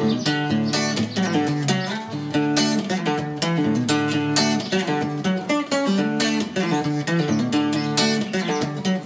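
Guitar playing an instrumental opening, plucked chords and single notes in a steady, moderate rhythm with no singing.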